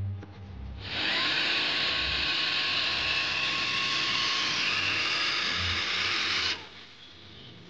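Cordless drill running steadily for about six seconds, screwing a Peggy Peg screw-in peg into the ground; it starts about a second in and stops abruptly.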